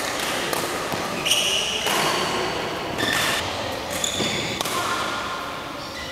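Badminton rally: sharp racket strikes on the shuttlecock at irregular intervals, mixed with short high squeaks of court shoes on the floor.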